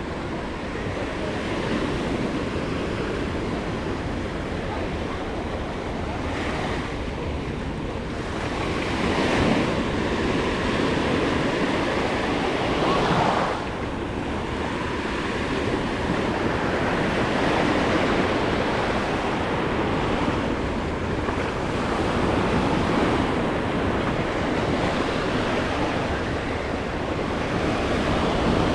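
Small waves breaking and washing up on a sandy beach, the surf rising and falling with each wave, with some wind noise on the microphone.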